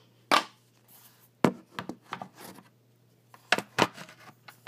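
About half a dozen sharp knocks and taps, spread out, with faint rubbing between them: handling noise from close to the microphone.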